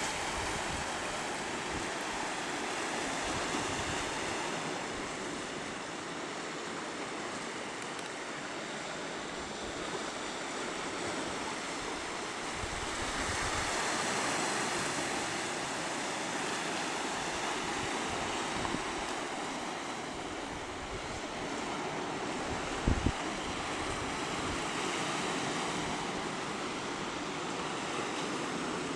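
Sea surf washing over coastal rocks, a steady rushing that swells a little and eases, with some wind. A brief low thump about three-quarters of the way through.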